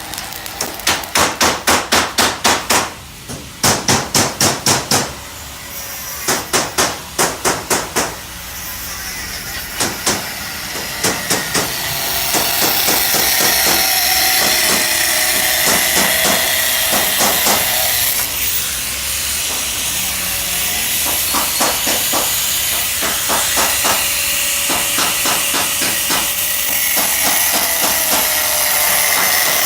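Hammering in quick runs of sharp blows, about four or five a second, with short pauses between the runs; after about twelve seconds the blows give way to a steady loud hiss with a few faint knocks under it.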